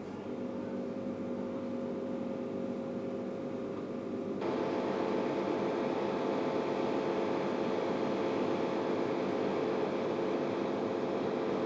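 Steady mechanical drone with a rushing noise and a few faint steady tones, becoming louder and fuller about four seconds in.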